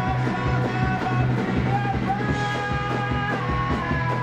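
Live rock band playing: a man sings long held notes over strummed acoustic guitar and a steady, driving beat.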